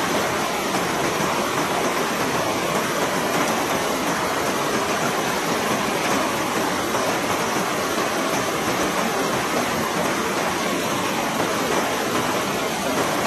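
River water rushing, a steady even roar of flowing water.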